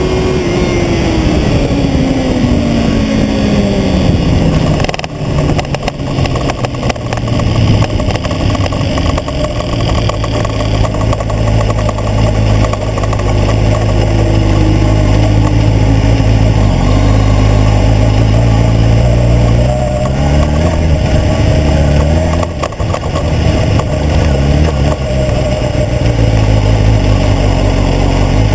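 Sport motorcycle engine winding down from high revs as the bike runs off the track onto grass, its pitch falling steadily over the first few seconds. It then runs low and slow, with a couple of short revs about twenty seconds in.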